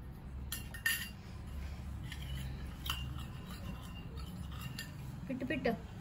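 Scattered light taps and scrapes of a baby's hand patting and smearing frosting on a foil-covered cake board.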